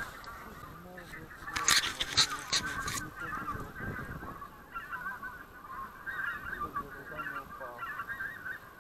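A flock of greater white-fronted geese calling, a continuous high-pitched chatter of overlapping calls. A few sharp knocks come about two seconds in.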